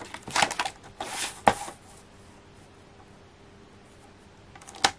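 Gold mirror card being handled and cut on a paper trimmer: a few short scraping sounds and sharp clicks in the first two seconds, then a quiet pause, then a few more clicks near the end.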